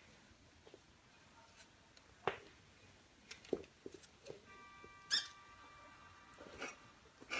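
Kittens scuffling at play: scattered light taps, scratches and knocks, two of them sharper. In the second half a steady, thin high-pitched tone holds for about two and a half seconds.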